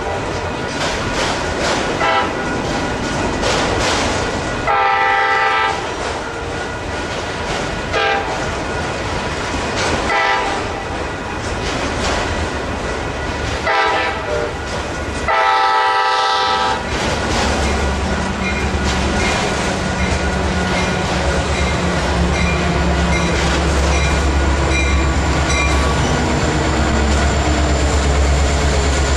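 Metra MP36PH-3S diesel passenger locomotive sounding its multi-note air horn as it approaches, in a run of short and long blasts; the last long blast ends about seventeen seconds in. Then the locomotive's diesel engine rumbles loudly and steadily as it draws close, over a steady background of rail noise.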